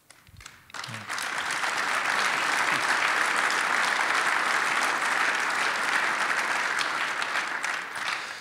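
A large audience applauding. It swells up within the first second, holds steady, and fades away near the end.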